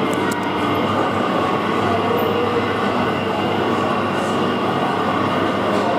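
Steady din of a busy indoor amusement arcade, a constant mix of ride and machine noise with a low hum.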